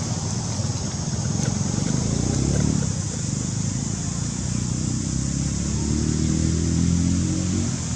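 A motor vehicle's engine humming, swelling louder twice, with a steady high-pitched drone above it.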